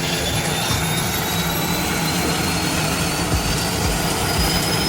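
Turboprop engine spooling up during its start, a steady rushing turbine noise with a thin whine that rises slowly in pitch as the engine accelerates on starter and igniters.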